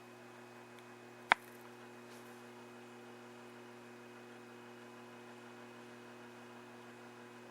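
Steady low electrical mains hum with a single sharp click about a second in.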